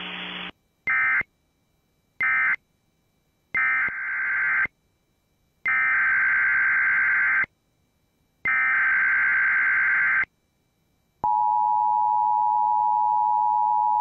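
Emergency Alert System SAME data bursts: a harsh warbling digital buzz sent five times with short gaps, the last two longer. These are the coded tones that close one alert and open the next. They are followed by the steady two-tone EAS attention signal, held for about four seconds. A brief hiss ends about half a second in.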